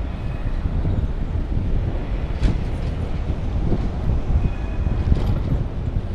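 Ride noise from a bicycle-mounted camera rolling along a city street. There is a steady low rumble of wind on the microphone and the bike jolting over the road surface, with a couple of sharper knocks about two and a half and five seconds in.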